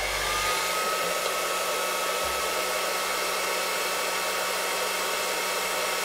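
Handheld hair dryer running steadily on its cold, no-heat setting at medium power (2 of 3), blowing into a plastic bottle: an even rush of air with a steady motor whine and hum.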